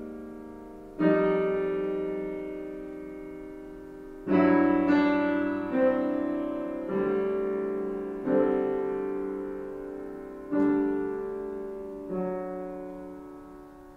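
Background piano music: slow chords, each struck and left to ring and fade before the next one, a new chord every one to three seconds.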